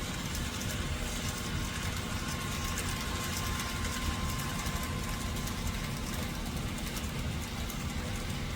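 N scale model freight train rolling past on Kato Unitrack: a steady running rumble with rapid light clicking from the wheels crossing the rail joints.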